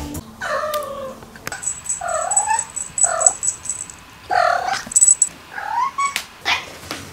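Tuxedo cat giving a string of short trills and squeaks, about seven, each one bending up or down in pitch. A thin, high pulsing tone sounds faintly behind the first few.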